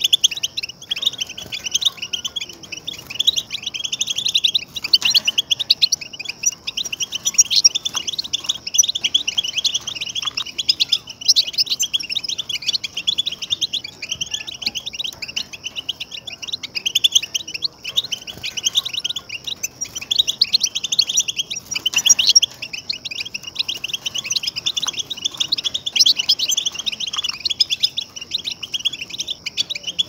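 A dense chorus of many small songbirds chirping and twittering together without a break, their calls overlapping.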